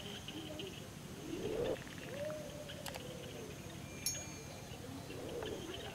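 Countryside ambience: birds calling, with a few low cooing calls like a dove's, over a steady high insect buzz that fades out about halfway through. A short, high bird chirp comes about four seconds in.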